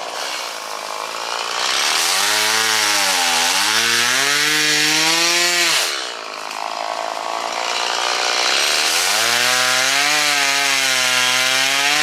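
Chainsaw run up to full throttle twice, each time for about four seconds, its pitch sagging and climbing back as it cuts through brush. It drops back to idle in between.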